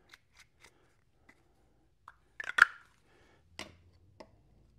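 Hand-handling noises on a steel workbench top, from a super glue bottle and rubber window-seal strips being set down and pressed together: scattered light clicks, a louder short clatter about two and a half seconds in, then two more sharp clicks.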